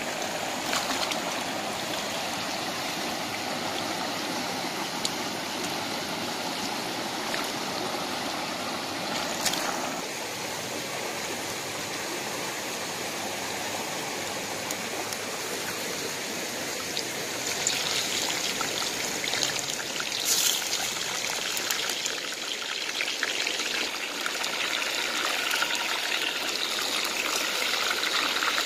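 Shallow stream running over stones: a steady rush of water, which turns hissier from about eighteen seconds in. A few brief sharp clicks stand out, about a second in, near nine seconds and near twenty seconds.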